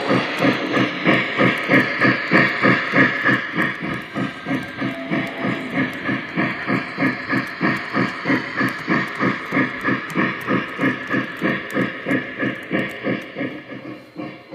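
Lionel Pere Marquette 1225 Berkshire model locomotive's onboard sound system playing steady steam-engine chuffing, about three to four chuffs a second, with hissing. The chuffing grows gradually fainter over the second half as the locomotive runs away.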